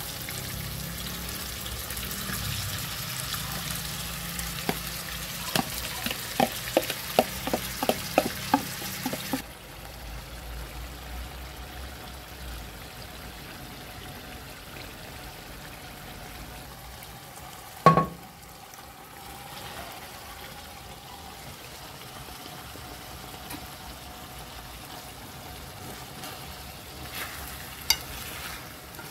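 Saltfish, tomato and onion sizzling in a frying pan, with a run of quick metal clicks from a fork against the bowl and pan for a few seconds. After about nine seconds the sizzle turns quieter and steadier, with one sharp knock about halfway through and a couple of clicks near the end.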